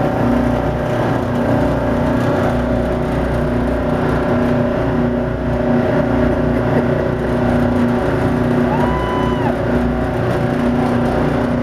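Tugboat's diesel engine running hard at a steady pitch, heard from on deck with the rush of the wake and wind. A short faint tone sounds about nine seconds in.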